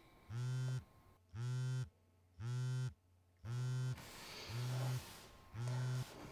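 Smartphone on vibrate buzzing against a wooden tabletop with an incoming call: six short buzzes of about half a second each, roughly one a second.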